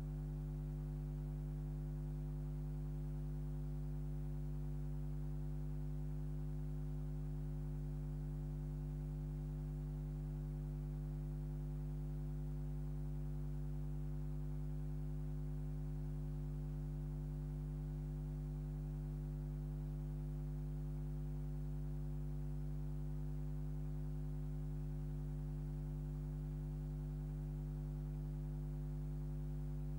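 Steady electrical mains hum with its overtones, unchanging throughout: the soundtrack carries no sound from the filmed scene.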